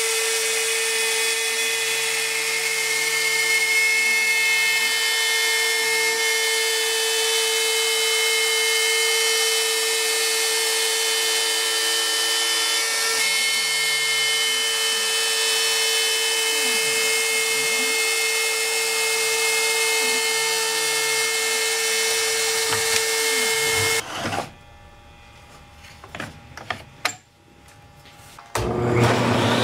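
X-Carve CNC router spindle running with a steady high whine as it routes half-inch MDF, with a lower tone that rises and falls as the machine moves. About 24 seconds in it stops, leaving a few light clicks and knocks. Near the end a table saw motor starts with a steady hum.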